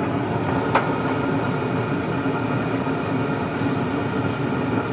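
Steady mechanical hum of a running pellet smoker's fan, with a single sharp click about three-quarters of a second in.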